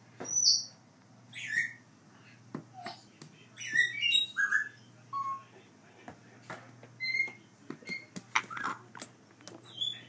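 Young African grey parrot making a series of short chirps and whistles, some sliding in pitch, with a few brief clicks in between.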